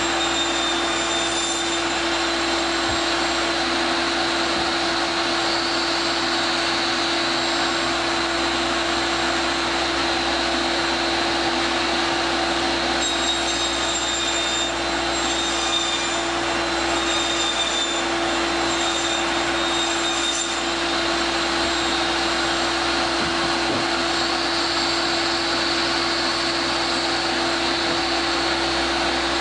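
An electric machine motor running steadily without a break: a constant hum over an even rushing noise.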